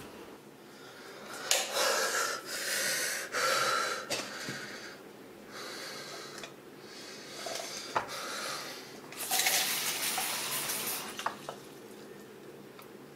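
A man breathing hard in a series of long, gasping breaths, with a single sharp click about eight seconds in.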